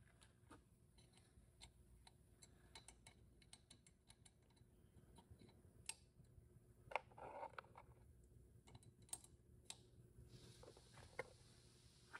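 Faint, scattered light clicks and taps of small metal parts being handled and fitted into a VW 01M/01P automatic transmission valve body. A brief rustle comes about seven seconds in.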